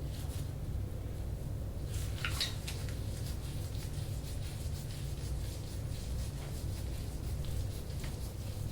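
Hands rubbing over skin during soft-tissue massage, over a steady low hum. About two seconds in there is a brief squeaky crackle.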